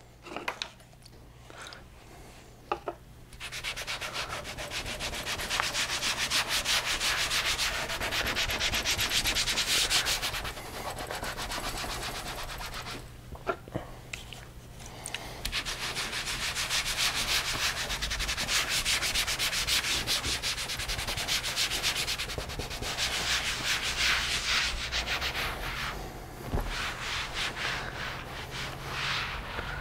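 A cloth rag scrubbing back and forth across a work mat to wipe it clean. It comes in long stretches of steady rubbing with a couple of short pauses.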